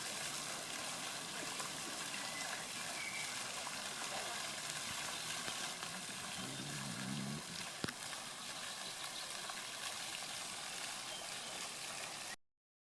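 Steady rushing of flowing water, an even hiss with one sharp click about eight seconds in. The sound cuts off abruptly near the end.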